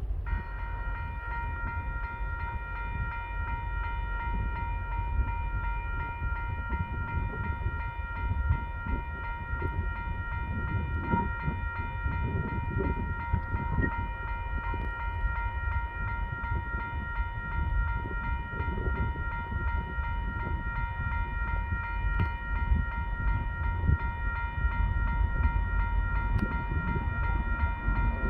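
Level crossing warning alarm sounding a steady high-pitched tone over the low rumble of a TasRail DQ-class diesel locomotive hauling a coal train toward the crossing.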